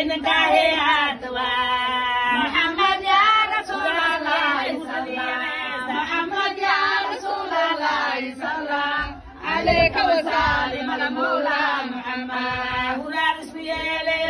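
Women singing a devotional chant in praise of the Prophet Muhammad, unaccompanied, in long drawn-out phrases that hold and glide on the pitch.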